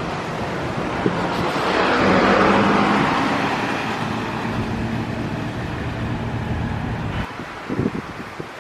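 Road traffic: a vehicle passing, its tyre and engine noise swelling to a peak about two seconds in and then slowly fading.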